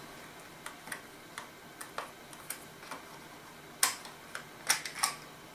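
Small screwdriver turning the battery-cover screw on a plastic toy RC transmitter: scattered faint ticks, with a few sharper plastic clicks about four to five seconds in.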